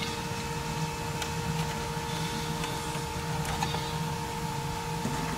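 Steady low machine hum with a constant mid-pitched tone, and a few faint clicks from a plastic wiring-harness connector being handled.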